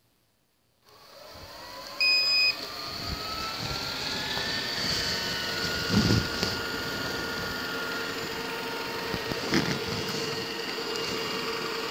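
Ecovacs Deebot M80 Pro robot vacuum starting up about a second in, its motor winding up with a rising whine and a short loud beep near two seconds. It then runs steadily, with two brief knocks about six and nine and a half seconds in.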